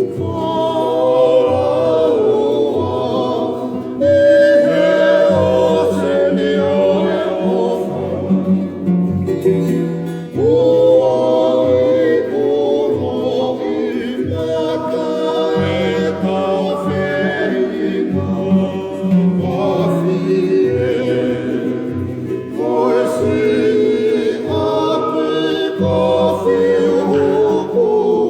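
A group of voices singing a Tongan faikava song in harmony, over strummed string accompaniment with a plucked bass line.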